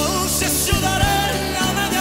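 Live concert music: a male singer over a full band with bass and drums.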